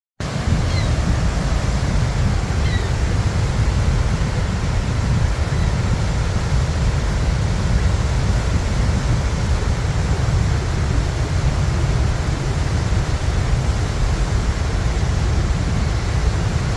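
Horseshoe Falls at Niagara: the steady, deep rush of a huge volume of water plunging into the gorge, a constant noise heaviest in the low end.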